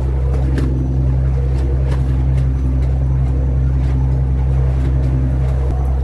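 Boat engine running steadily with a deep, even drone, and faint clicks scattered through it.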